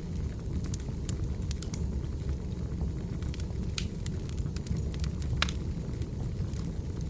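Wood fire burning: a steady low rumble of flames with irregular sharp crackles and pops from the burning logs, one louder pop about five seconds in.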